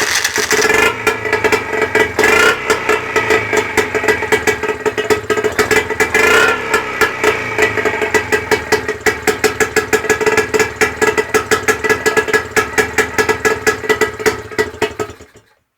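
Seagull two-stroke outboard engine running with a rapid, regular beat. It is revved briefly twice in the first few seconds, then runs on and dies away near the end as it is shut off.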